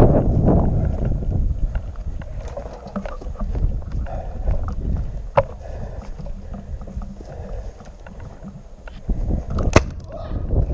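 Footsteps on snowy ground and the rustle and knocking of a player's gear and rifle-mounted camera while on the move, with wind on the microphone. A sharp click comes about five seconds in and a louder one near the end.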